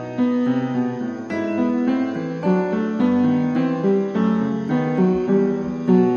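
Background piano music: a steady run of single notes and chords.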